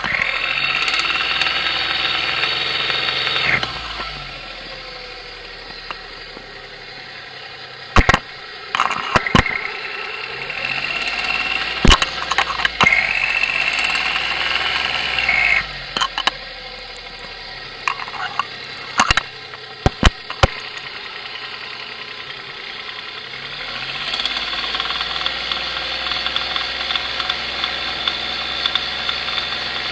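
1993 Geo Metro's three-cylinder engine revved and held three times, dropping back to idle in between, with several sharp knocks, one cluster about eight to nine seconds in and more around twelve, sixteen and nineteen to twenty seconds. It is the knocking noise that appeared after a Seafoam treatment.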